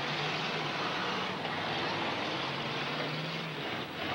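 Demolition derby car engines running in a steady, dense din, their low hum coming and going.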